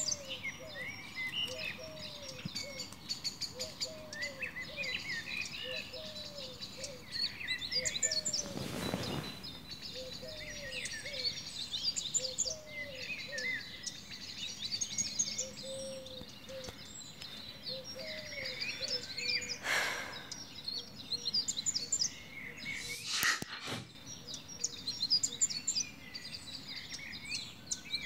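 Birdsong ambience: many small birds chirping and twittering, with a lower chirp repeating about once a second. Three brief hissing swells come through, the first about nine seconds in and two more later on.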